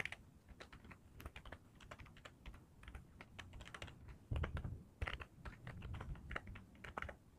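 Keyboard typing: a faint, quick, irregular run of key clicks as a web address is entered.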